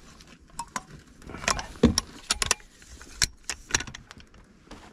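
Irregular clinks and knocks of fishing gear being handled in a boat, as a second, larger landing net is got out and set down.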